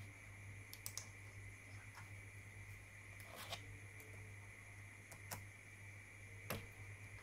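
A handful of faint, scattered computer keyboard and mouse clicks as a web address is pasted into a settings dialog, the last click near the end the loudest. Under them runs a steady low electrical hum with a faint high whine.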